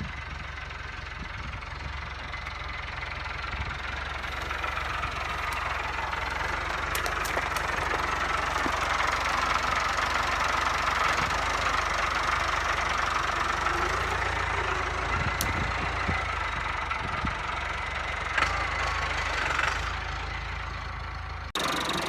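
Diesel engine of a farm loader fitted with pallet tines, running steadily while working. It grows louder over the first several seconds, eases off a little near the end, and cuts off suddenly shortly before the end.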